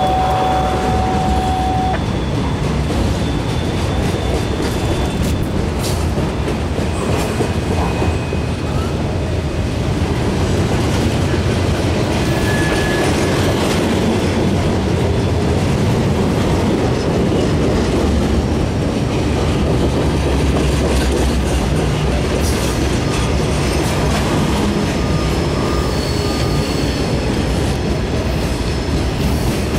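Loaded freight cars rolling steadily past, the steel wheels making a continuous rolling noise on the rails, with a few faint knocks and brief high-pitched wheel squeals now and then.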